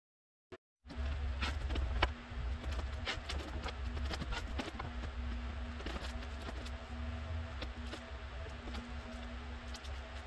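Curly maple boards clicking and knocking lightly against each other and the pipe clamps as they are laid out and shifted, over a steady low hum; the sound starts about a second in.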